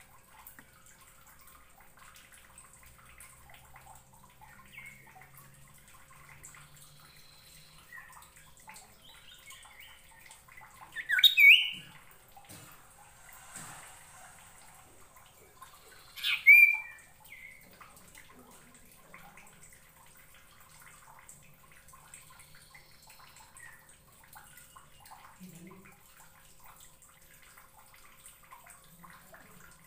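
Caged common iora (sirtu/cipo) giving two loud, sharp calls, about eleven seconds in and again some five seconds later, with faint soft chirps between.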